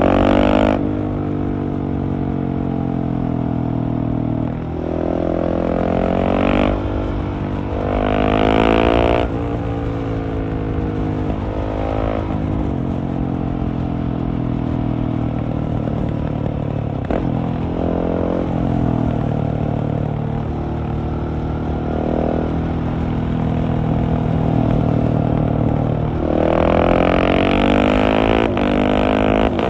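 Husqvarna 701's single-cylinder engine through a LeoVince Nero exhaust, heard from the rider's seat. It runs steadily and several times rises in pitch as it accelerates, each rise breaking off sharply; the longest comes near the end.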